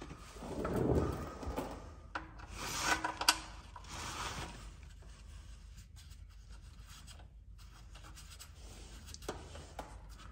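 Rubbing and rustling of a gloved hand working at the oil pan while the drain plug is threaded back in by hand, in two spells in the first half with a sharp click about three seconds in, then only faint background.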